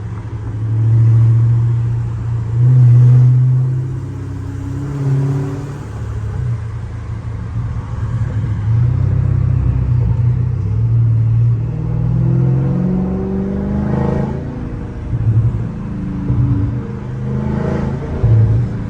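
Catless Dodge Scat Pack's 392 HEMI V8 exhaust under way, the revs climbing and falling back several times, with a long rise in pitch about twelve seconds in. A few sharp crackles come near the end as it lets off.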